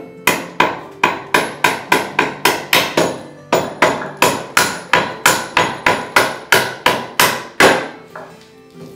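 Repeated mallet blows on the wooden shave pony, about three a second with a brief pause about three seconds in, stopping a little over a second before the end. Faint background music underneath.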